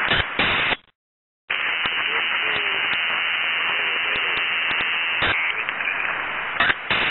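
Two-way radio static: after a short dropout, a transmission keys on about a second and a half in and runs as a steady, thin hiss, with faint, unclear voice underneath and a few sharp clicks. It cuts off near the end.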